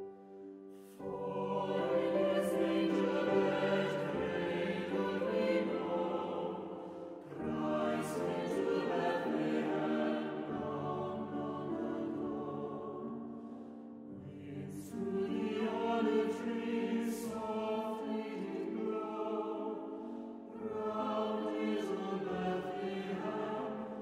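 Mixed chamber choir of women's and men's voices singing a carol in a church, in four phrases that begin about a second in and then every six or seven seconds.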